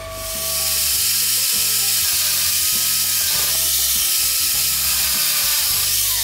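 Angle grinder running against the end of the bent steel lamp rod: a steady, loud grinding hiss that builds about half a second in and holds before fading off at the end.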